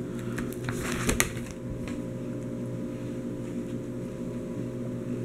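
Plastic card-binder sleeves rustling and crinkling briefly as they are handled, about a second in, over a steady low electrical hum.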